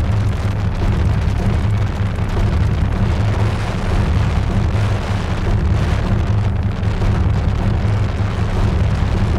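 Helicopter in flight heard from its open side door: steady, loud rotor and engine noise mixed with wind rushing over the microphone, heaviest in the deep bass.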